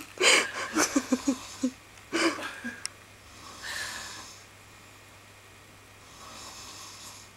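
Stifled giggling in the first two seconds or so. Then a sleeper's slow breathing, a faint snoring breath about four seconds in and another, fainter one near the end.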